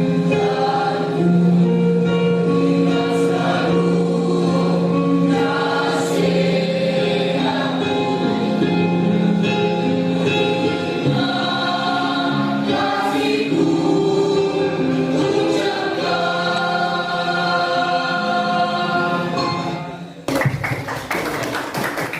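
A school choir sings in several parts, holding long notes that change every second or two. Near the end the singing breaks off and guitar strumming begins.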